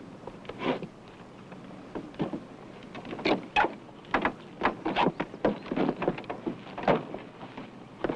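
Irregular wooden knocks and thumps as a man climbs down from a horse-drawn covered wagon, a few early on and a quick run of them in the second half.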